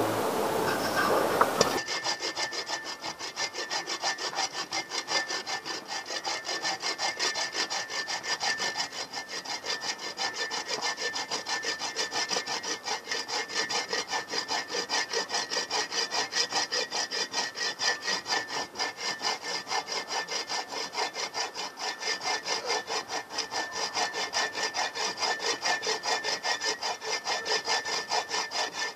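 Hand saw cutting through a dry dead branch of firewood in quick, even back-and-forth strokes, about three a second, starting about two seconds in.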